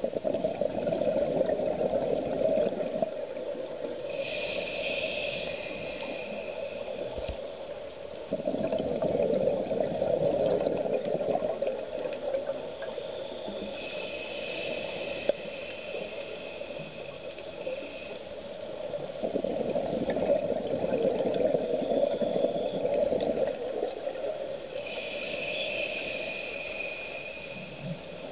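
A scuba diver breathing through a regulator underwater: about three slow breaths, each a hiss on the inhale followed by a louder gurgle of exhaled bubbles.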